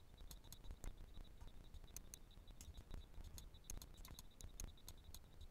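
Near silence with faint, irregular clicking of a computer mouse, a few clicks a second, made while drawing on screen.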